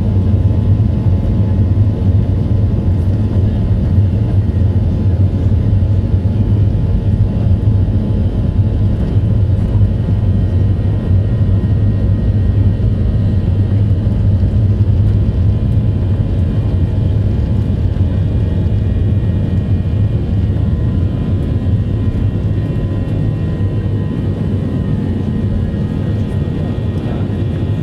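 Airplane engines during takeoff: a loud, steady low rumble with faint steady whining tones above it, easing off slightly near the end.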